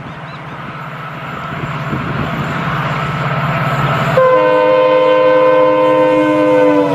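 Indian Railways diesel locomotive approaching, its engine rumble growing steadily louder. About four seconds in it sounds a long multi-tone warning horn, whose pitch dips near the end as the locomotive passes.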